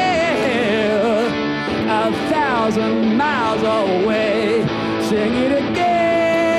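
Live rock music: a man singing with wavering, sliding notes and a long held note near the end, over an electric guitar.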